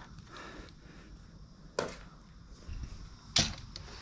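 Two sharp knocks about a second and a half apart, the second louder, with a few faint low bumps between: hard items knocking as the curtain-rail hardware is handled.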